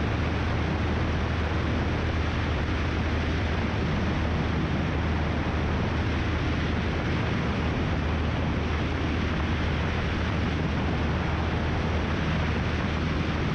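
Cessna 172's piston engine and propeller droning steadily at climb power, heard from outside the aircraft with wind rushing over the microphone.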